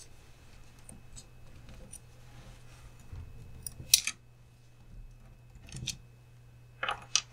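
Small hard parts being handled and fitted on a 1/18-scale RC crawler's front axle: one sharp click about four seconds in as a part is pressed onto the axle end, a few soft knocks shortly after, and several quick clicks near the end.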